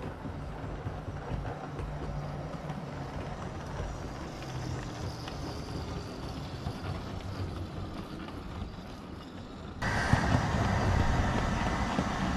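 7mm-scale (O gauge) model railway train running along the track: a steady rumble of motor and wheels with a faint low hum. Just under ten seconds in, the sound jumps abruptly to a louder, brighter running noise.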